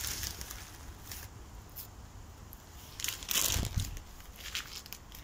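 Plastic food packet crinkling and rustling in the hand, in scattered bursts, loudest about three seconds in.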